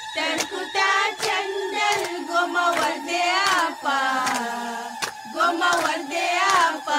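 Women singing a song together, keeping time with repeated hand claps.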